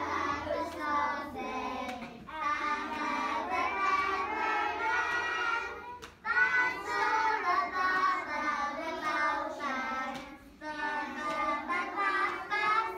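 A class of young children singing a song together, in four phrases of a few seconds each with short breaks between.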